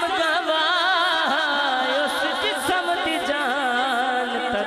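A man singing a naat through a microphone, drawing out long ornamented notes that waver up and down without words.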